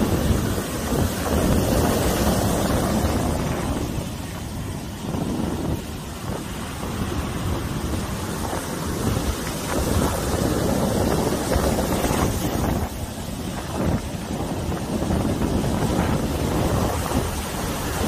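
Ocean surf breaking and washing up a sandy beach: a continuous rush that swells and eases with each wave, with wind rumbling on the microphone.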